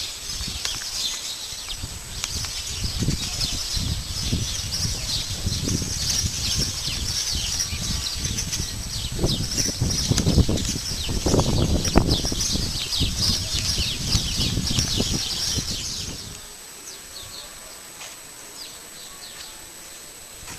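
Many small birds chirping densely in the trees, with wind gusting on the microphone. Both stop abruptly about three-quarters of the way through, leaving a much quieter background.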